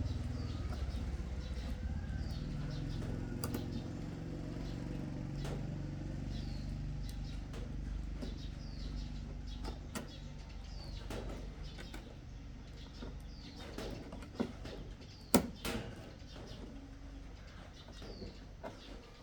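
Small bird chirping repeatedly, a short high call about once a second, over a low steady hum. A few sharp clicks or knocks come in, the loudest about fifteen seconds in.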